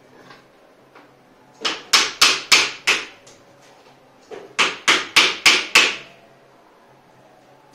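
Two quick runs of sharp knocks, about five and then about six, roughly three a second: the steel tubes and plastic corner connectors of a collapsible wardrobe frame being knocked together as a tube is seated in its joint.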